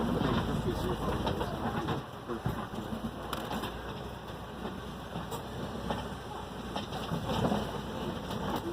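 Open-air safari ride vehicle moving slowly, a steady low rumble, with a dove-like bird cooing a few times.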